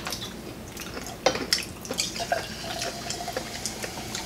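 Cola poured from a plastic bottle into a glass, fizzing with many small crackling ticks, plus light clicks of glass and plates, one sharper click about a second in.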